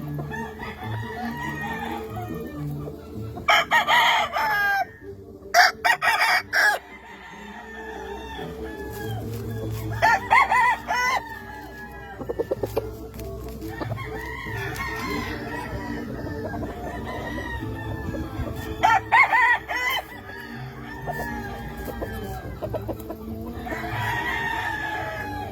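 Gamefowl roosters crowing about five times, with softer chicken calls between, over background music.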